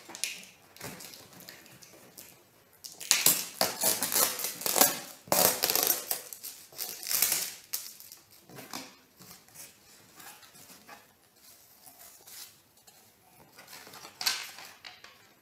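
Cardboard box flaps being opened and packing material crinkling and rustling as it is pulled out. The crinkling is loudest about three to eight seconds in, then turns to lighter rustling of cardboard and paper.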